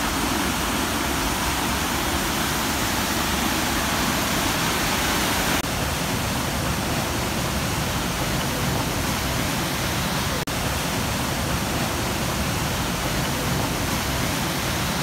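Waterfall cascading over rocks: a loud, steady rush of falling water, with a slight shift in tone about five and a half seconds in and a momentary break around ten seconds in.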